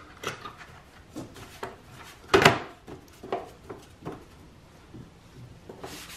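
Plastic air-intake parts and engine cover being handled and pressed into place: a scatter of light plastic clicks, knocks and rubbing, with one louder knock about two and a half seconds in.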